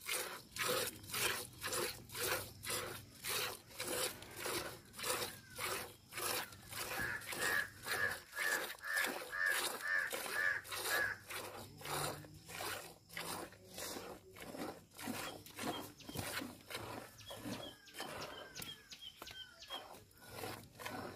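Hand milking a cow into a steel pail: milk squirting from the teats and hitting the pail in a steady rhythm, about two to three squirts a second.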